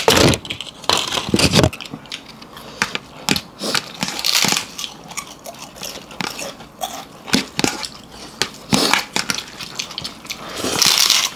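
Close-up eating sounds: chewing, crunching and wet smacks in an irregular run of small clicks. Two longer hissing bursts come around the middle and near the end.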